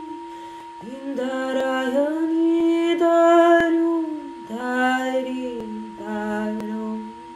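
Woman singing wordless, vowel-like tones in four long held phrases, over a steady ringing tone from a singing bowl.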